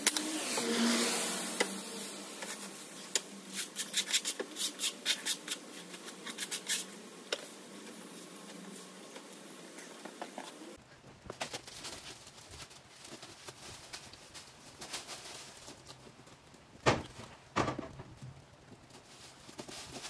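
Heavy rain pattering, with many irregular sharp taps of drops, thicker in the first half and sparser after the sound changes about halfway through.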